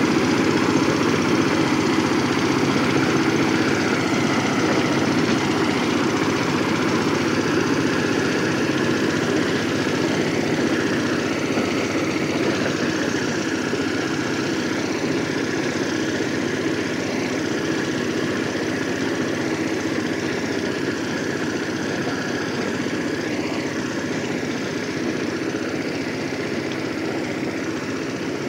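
VST Shakti 130 DI power tiller's single-cylinder diesel engine running steadily while working the soil, getting slightly quieter toward the end.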